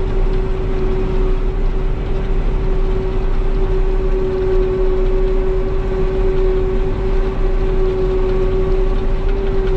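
Self-propelled forage harvester chopping standing corn for silage, heard from inside the cab: a steady machine drone with a constant humming tone.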